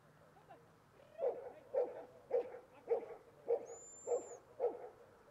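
A spitz-type hunting dog baying at a mounted bear: a run of seven steady barks, about two a second, starting about a second in.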